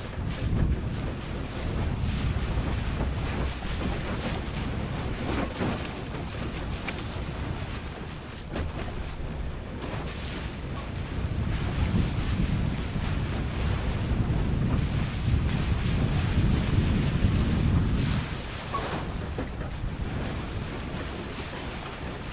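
Wind buffeting the microphone over water rushing and splashing along the hull of an Oz Goose, a small flat-bottomed plywood sailing skiff, driven hard through short chop in strong wind. The low rumble swells for several seconds past the middle and eases about three-quarters through, with occasional sharp splashes.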